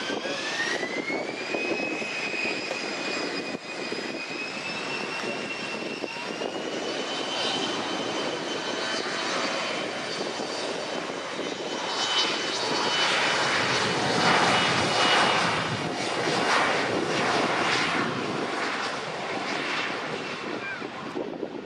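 An airliner's jet engines spool up with a whine that rises in pitch and then holds steady. The engine noise then builds to its loudest a little past the middle and eases toward the end.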